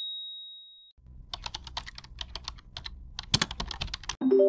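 Keyboard typing sound effect: a quick run of key clicks as text is typed into an on-screen search bar. A high ringing tone fades out in the first second, and a short chime of several notes starts near the end.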